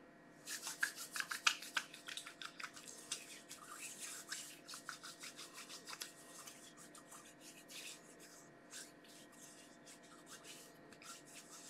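Hands rubbing in hand sanitizer: a rapid run of soft rubbing strokes, dense for the first half and thinning out in the second half.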